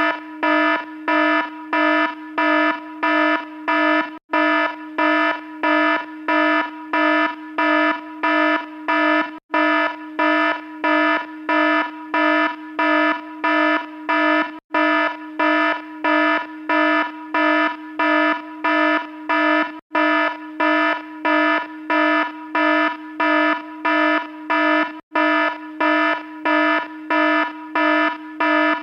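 Electronic alarm beeping about twice a second, a harsh, buzzy low-pitched tone that repeats without change, with a brief break every five seconds or so.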